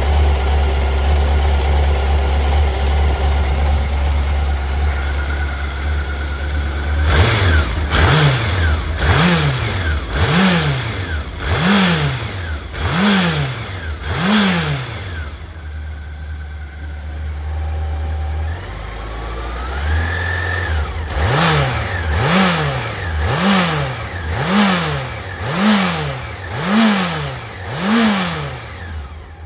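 Honda CBX750F's air-cooled inline-four engine idling, then revved in a run of quick throttle blips about one a second, settling back to idle, and revved again in a second run of blips. The seller describes the engine as free of abnormal noise.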